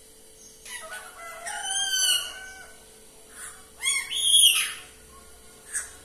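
Pet talking parakeet giving a few drawn-out calls that glide in pitch, the loudest about four seconds in, with a short call near the end.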